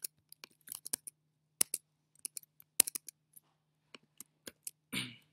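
Irregular computer keyboard and mouse clicks, single or in small clusters, the sharpest about a second apart, over a faint steady low hum; a brief rustling noise near the end.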